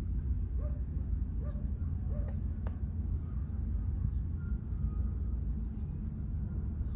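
Outdoor lakeside ambience: a steady low rumble under a thin, high, steady tone, with a few short bird calls in the first couple of seconds.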